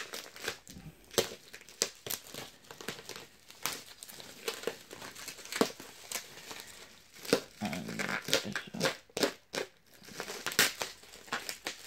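Bubble wrap crinkling and rustling in irregular sharp crackles as it is cut with a knife and pulled off a boxed vinyl figure by hand.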